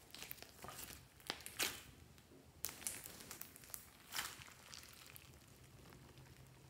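Hands kneading, stretching and pressing a large lump of slime, with a few sharp pops and crackles at irregular moments.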